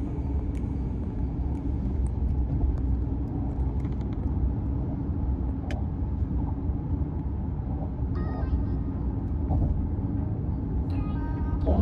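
Steady low rumble of a car driving at highway speed, tyres running on wet pavement, heard from inside the car.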